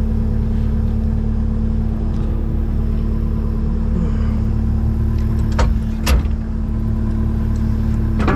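Takeuchi TB285 compact excavator's diesel engine running at a steady speed, with two sharp knocks a little over halfway through and another near the end.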